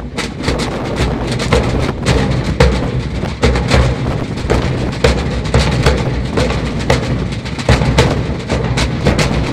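Military fife and drum band playing a march on the move, snare drums and a bass drum beating a steady marching rhythm of about two beats a second. Wind rumbles on the microphone underneath.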